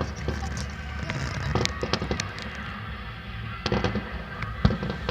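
Fireworks going off in a rapid irregular series of cracks and bangs, with a cluster of quick crackles about two-thirds of the way through and a louder bang near the end.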